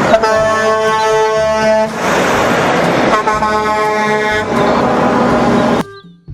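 Truck air horn sounding twice, each blast about a second and a half long, over loud, noisy truck engine sound that cuts off suddenly near the end.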